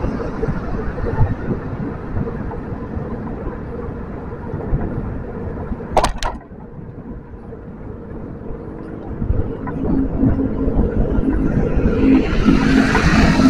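Steady wind rush and low road rumble of a ride along an elevated road, with a short sharp double click about six seconds in. Near the end the noise swells as another motorbike's engine comes up close.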